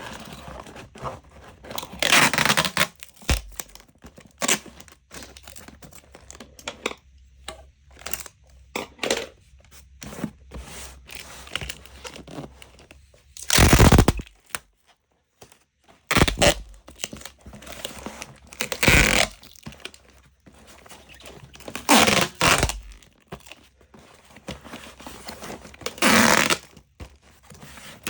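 Irregular bursts of rustling, crinkling noise with scattered clicks, several louder bursts a few seconds apart.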